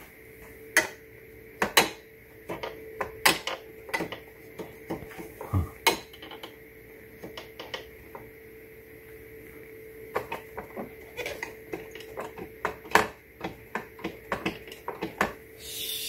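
Irregular sharp clicks and light plastic knocks from handling and testing the ice and water dispenser of a GE Profile refrigerator, over a faint steady hum. A hissing rush starts just before the end.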